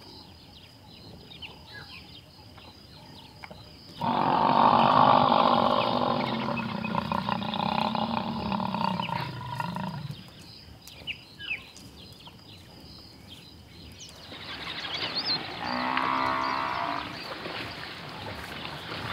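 African buffalo bellowing: one long, loud, low call lasting about six seconds that slides down in pitch as it ends, then a second, shorter call near the end.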